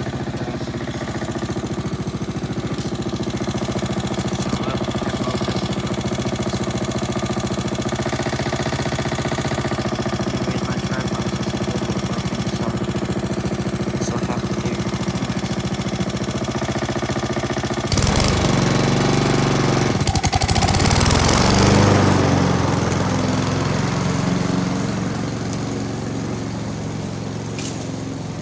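Walk-behind gas lawn mower engine running steadily. About eighteen seconds in it turns suddenly louder and rougher for several seconds, then settles back to a steady hum.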